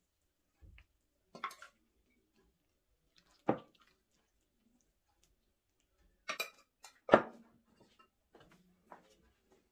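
Steel ladle clinking and knocking against metal cookware as syrup is ladled over a steel baklava tray: about seven separate metallic knocks, the loudest about three and a half and seven seconds in.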